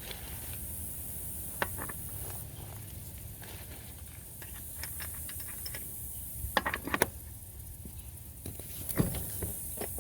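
Scattered metallic clicks and knocks of wheel hardware being handled on a riding mower's front axle, with a quick cluster of sharper clinks past the middle and another knock near the end.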